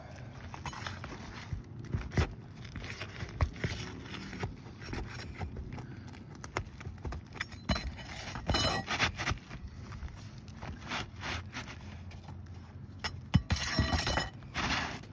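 Gloved hands and a pry bar working asphalt roof shingles: scattered taps and clicks with scraping. Longer crackling scrapes come about halfway through and again near the end, as a shingle tab is pried up.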